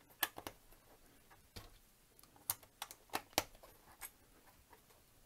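Sembo Blocks plastic building bricks clicking and tapping as they are handled and pressed onto the model: about ten short, sharp clicks at irregular intervals.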